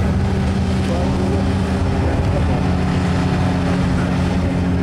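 Engines of several folkrace cars running together on the start grid, a steady low drone that holds throughout.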